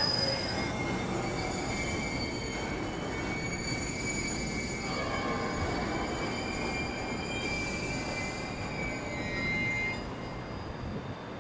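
Train moving along the track, wheels squealing in several thin, high, steady tones over the rolling noise, quieter from about ten seconds in.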